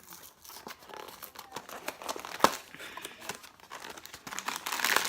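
Snack packaging being handled and torn open, with dense crinkling and crackling and one sharp crack about halfway through.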